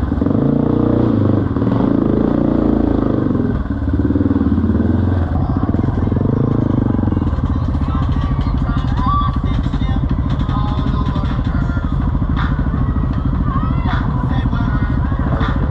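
Yamaha TT-R230 dirt bike's single-cylinder four-stroke engine, revving up and down as the bike climbs out of a rut. From about seven seconds in it runs steadily at low throttle.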